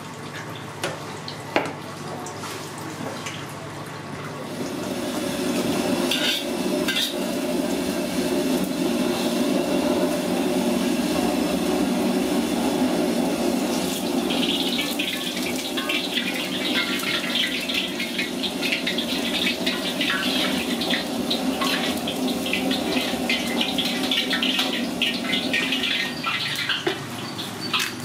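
A steady hiss of kitchen noise builds a few seconds in. About halfway through, hot oil in a wok over a gas flame starts sizzling and crackling while a metal ladle stirs it, with occasional clinks of utensils.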